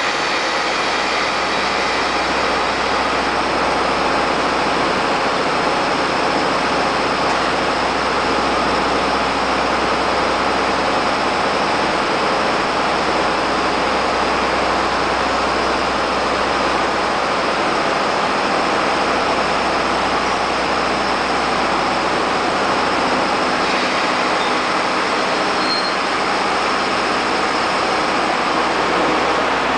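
EF65 electric locomotive starting a sleeper train slowly away from the platform: a steady, even mechanical whir and rumble that holds at the same level throughout.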